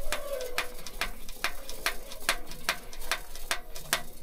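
Hand fuel priming pump on an old diesel truck being worked up and down, clicking about four to five times a second, drawing diesel into a fuel system that has stood dry for years. The clicking stops near the end.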